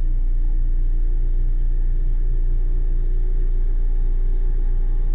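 Single-drum soil compactor (road roller) engine running steadily as the machine drives, a loud, even low rumble.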